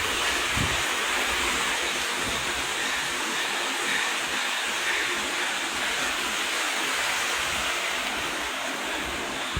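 Steady rushing noise of fast-moving water.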